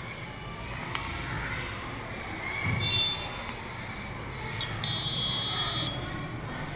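Buzzer of a home-built MQ2 smoke-sensor alarm circuit sounding: a short high beep about three seconds in, then a steady high-pitched tone for about a second. This is the alarm going off when the sensor detects smoke.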